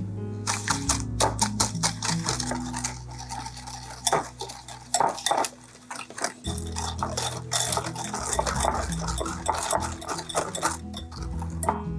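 Wire balloon whisk beating eggs into a thick brown-butter and sugar mixture in a glass bowl: rapid clinks and scrapes of the wires against the glass, starting about half a second in, easing briefly near the middle and stopping near the end. Background music runs underneath.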